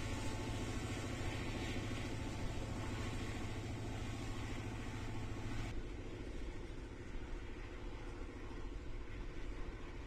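Norfolk Southern freight train passing: the diesel locomotives run with a steady low drone over a rumbling noise. About six seconds in the sound changes abruptly to the quieter rumble of freight cars rolling by.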